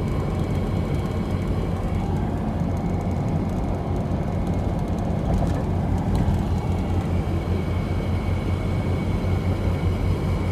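Steady road and engine noise of a moving 3rd-gen Toyota 4Runner, a constant low rumble.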